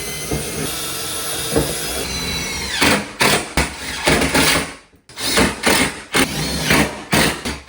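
Power drill running steadily at full speed, then spinning down about three seconds in, followed by a string of short uneven bursts as the trigger is pulsed.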